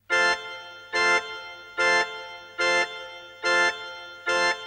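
Music: a song's intro on a keyboard with an organ-like sound, striking the same chord six times at an even pace, just under one a second. Each stab is held briefly, then fades.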